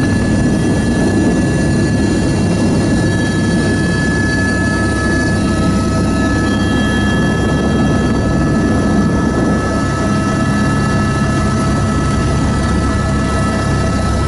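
Helicopter's turbine engine and main rotor heard from inside the cabin, running loud and steady as the aircraft lifts off and climbs away, with a steady high whine above the dense rotor noise.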